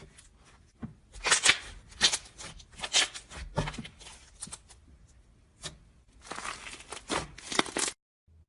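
Slime being squeezed and poked by hand, giving irregular crackling, popping and clicking sounds in quick clusters. The sounds cut off abruptly near the end.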